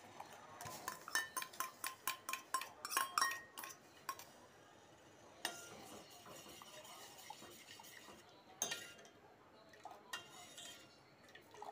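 A steel spoon clinking against a stainless steel bowl and saucepan: a quick run of ringing clinks in the first few seconds, then a few single clinks while milk is stirred in the pan.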